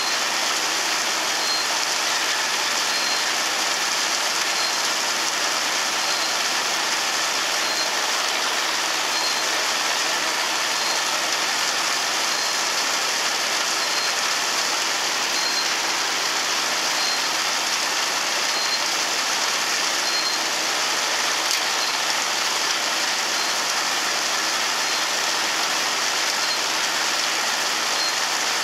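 Forage blower running under load, blowing chopped corn silage fed from a forage wagon: a steady rushing, with a faint high chirp repeating about once a second.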